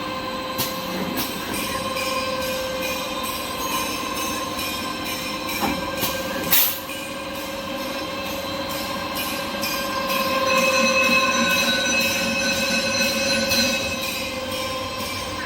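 Automatic paper log saw cutting machine running: a steady mechanical whine with regular short ticks as it cycles, and one louder sharp hit about six and a half seconds in.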